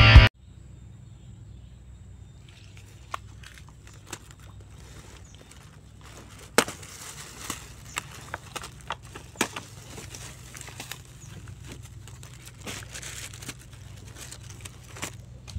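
Rock music cuts off just after the start. A faint outdoor background follows, with scattered sharp crackles and knocks that grow more frequent from about six seconds in.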